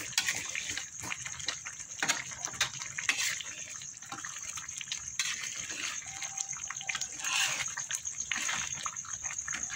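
A spatula stirring chicken heads and feet in a thick spice sauce in a wok: wet slopping of the sauce with frequent small taps and scrapes of the spatula against the pan.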